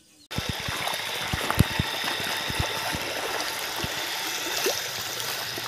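Shallow stream of clear water running over stones, babbling and gurgling steadily. It starts abruptly a moment in.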